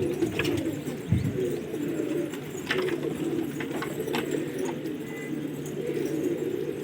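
Many domestic pigeons cooing together in a steady, overlapping murmur, with scattered sharp clicks and a low thump about a second in.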